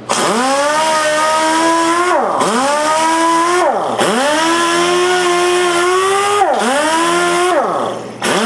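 Pneumatic dual-action sander with an 80-grit disc running at high speed against the edge of a wooden decking board, a high whine. Its pitch falls sharply and climbs back about four times.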